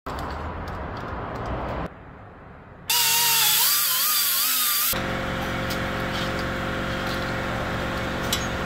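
Pneumatic angle die grinder grinding on the buggy's tube frame: a noisy rush, then about three seconds in a loud whine that wavers in pitch as the tool takes load. About five seconds in it settles into a steady whine.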